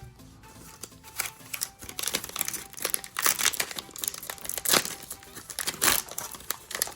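Foil trading-card pack wrapper being torn open and crinkled by hand: a run of irregular crackles that starts about a second in and gets louder.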